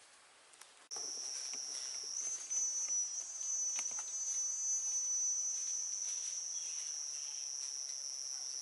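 Insects shrilling in a steady, high-pitched chorus that starts suddenly about a second in, its pitch stepping up slightly a second later.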